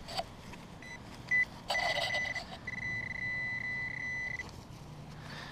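Metal detecting pinpointer beeping on a coin at the bottom of the hole: a short beep about a second in, then a steady high tone, held for nearly three seconds and broken briefly once, over a brief scuffing noise near its start. The tone signals a target the digger takes for a wheat cent.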